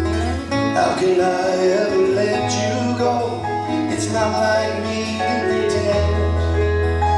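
Small band playing a country-style song live: strummed acoustic guitar, keyboard, a second guitar, drums and a steady low bass line, with a man singing lead from about a second in.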